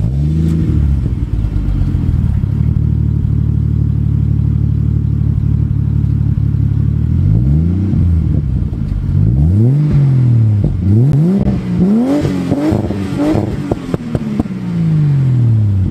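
Straight-six car engine idling steadily, then revved in a string of throttle blips from about halfway through, the pitch jumping up and falling back each time. Near the end it makes one longer fall back toward idle.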